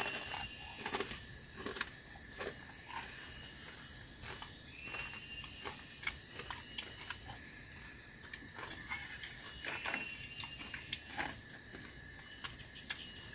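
Tropical forest insects shrilling steadily in several constant high tones, with scattered soft clicks and taps as food is picked from plates by hand, and two brief chirps about five and ten seconds in.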